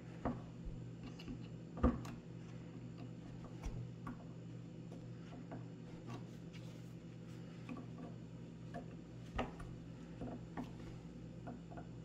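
Small scattered metal clicks, taps and scrapes as a hand tool bends the four retaining tabs of a Mopar door lock cover over onto the lock cylinder; the sharpest clicks come about two seconds in and again about nine and a half seconds in. A steady low hum lies underneath.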